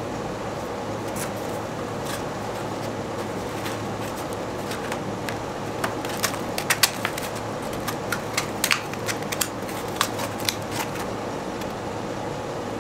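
Sheet of sandpaper crackling and crinkling as it is folded and wrapped around a sanding block, a cluster of sharp crackles from about six to eleven seconds in, over a steady background hum.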